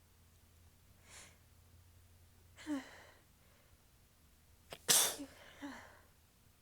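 A person's sneeze: a faint breath about a second in, a short voiced gasp near the three-second mark, then the sneeze itself about five seconds in, trailing off in two small voiced breaths.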